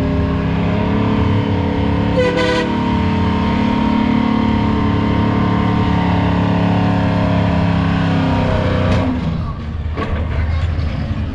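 Diesel engine of a pulling truck running hard at steady high revs, then dropping away and cutting out about nine seconds in. The air-gate kill cable has popped and shut off the engine.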